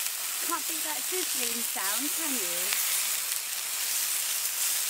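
Sausages and bacon frying on the hot pan of a Cadac Carri Chef 2 gas barbecue: a steady, crackling sizzle of fat.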